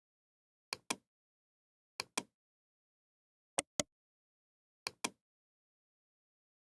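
Computer mouse double-clicking four times, each a pair of sharp clicks, at uneven intervals.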